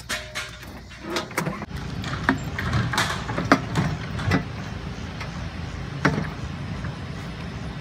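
Hand truck carrying a wooden cabinet rolling over an asphalt path: a steady low rumble from the wheels, with scattered knocks and rattles from the load.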